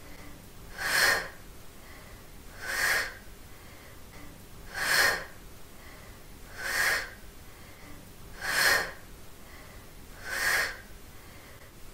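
A woman's forceful breaths out through the mouth, six of them about two seconds apart, one with each crunch as she lifts during oblique crunches.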